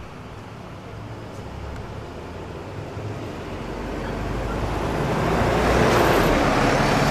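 Hybrid city bus approaching and passing close by, its engine and tyre noise growing louder to a peak about six seconds in.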